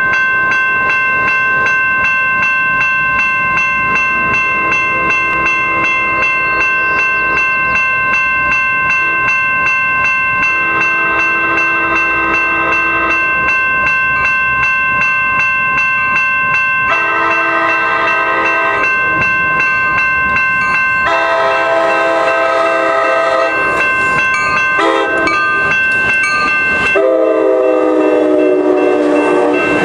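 A railroad crossing bell rings steadily while a Sounder commuter train sounds its horn chord in several long blasts as it nears the crossing. The last blast, the loudest, comes as the double-deck passenger cars roll past.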